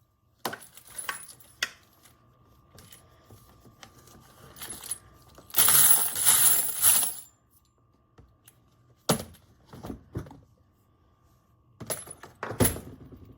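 Spent brass cartridge cases, 9mm and .40, clinking against each other as they are handled and sorted: scattered single clicks, with a loud rush of jingling for about a second and a half around six seconds in, as a handful of cases is stirred or poured.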